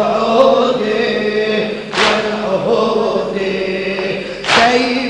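Men chanting an Arabic Shia mourning lament for Imam Husayn in long, drawn-out lines. A loud, sharp slap lands twice, about two and a half seconds apart, in time with the chant.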